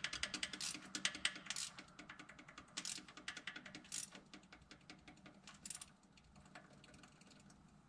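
Faint rapid clicking of a ratchet turning a rocker-arm adjusting nut on a Ford 200 inline six, mixed with small metal taps of the pushrod being worked up and down, while the valve is brought to zero lash. The clicks come thick at first, then thin out to scattered single clicks.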